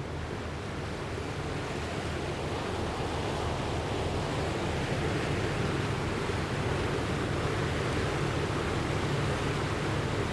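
Steady rushing of water like heavy surf, a sound effect for floodwater, with a low rumble underneath, growing slowly louder.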